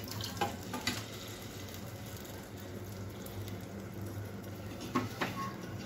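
Thick cooked toor and moong dal poured into a steel pot of hot ghee tempering, then sitting in it with a soft sizzle and bubbling. A steel ladle clinks against the pot twice in the first second and again near the end.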